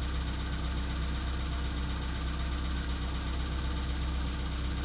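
Volkswagen Polo Sedan's CFNA 1.6-litre four-cylinder petrol engine idling steadily, with the engine knock typical of its cold start still present nearly two minutes after starting.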